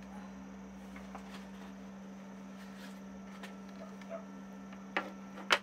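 Faint small taps and rustles of toppings being sprinkled from a small plastic plate, then two sharp knocks near the end as the plate meets a hard surface, over a steady low hum.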